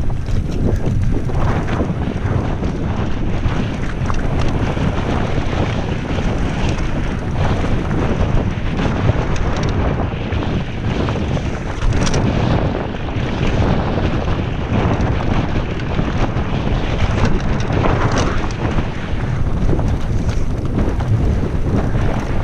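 Wind rushing loudly over a GoPro's microphone as a mountain bike runs downhill over a rough dirt singletrack. The bike rattles and knocks over bumps throughout, with sharper hits about 12 and 18 seconds in.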